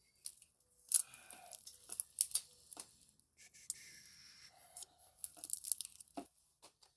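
Hands working on an engine: irregular sharp clicks and snaps mixed with crinkly rustling, as parts and plastic pieces are handled and pulled loose.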